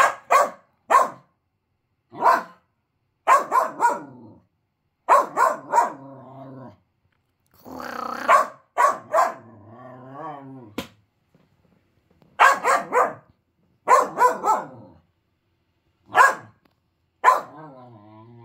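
Finnish Lapphund puppy barking in short groups of one to three barks, with low, drawn-out grumbling between the groups. It is a lower-pitched bark than his high excited one, and he is cross at a toy put up out of his reach.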